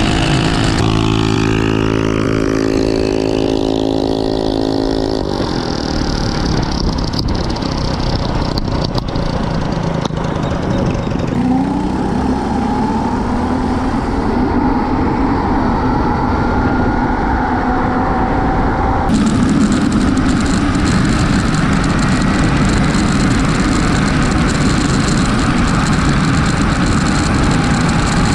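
Mini bikes racing at full throttle. A small engine drones steadily at first, then a whine rises in pitch as the bike gathers speed, and heavy wind rush on the microphone takes over near the end.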